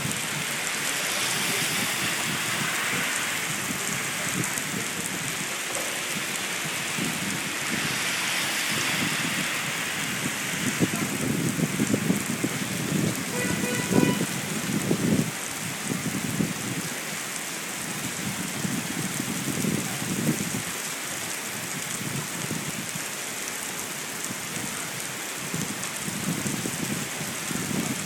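Heavy rain pouring steadily onto a wet street in a thunderstorm, with irregular low rumbles from gusty wind. About halfway through, a car drives past through the wet, with a short tone as it goes by.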